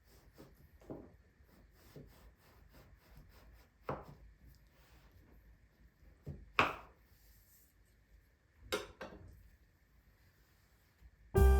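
Quiet handling sounds: a few scattered light knocks and rubs, the loudest about two-thirds of the way through. Piano music starts just before the end.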